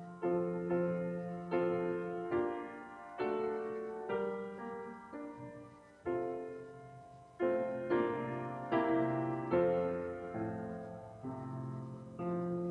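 Solo piano playing a slow piece of chords, each struck and left to fade before the next.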